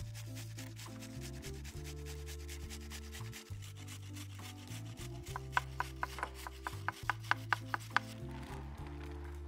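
Carrots being rubbed up and down a handheld metal grater, scraping strokes on the perforated steel. In the second half the grating speeds into a run of sharp, even strokes, about five a second, over low background music.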